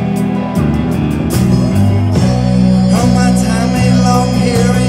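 Live blues-rock band playing, electric guitar over a steady bass line and drums; about three seconds in, a lead melody bending up and down in pitch comes in.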